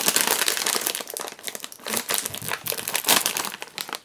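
Plastic snack bag of Baby Star noodle snacks crinkling as it is handled and opened, a dense run of sharp crackles.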